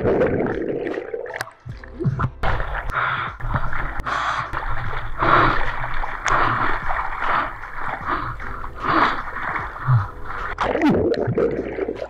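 Water splashing and gurgling around a surfboard paddled out through small surf, heard close from a board-mounted camera: muffled under water as the board goes under a wave near the start, then irregular splashes about once a second from the paddling strokes.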